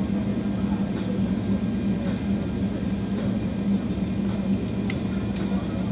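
Steady cabin drone of an airliner taxiing to its gate: a constant low hum from the engines and cabin air, with two short ticks about five seconds in.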